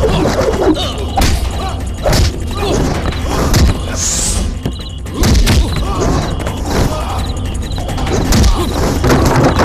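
Movie fist-fight sound effects: a string of sharp punch and body-hit thuds over loud action background music, with a quick swish about four seconds in.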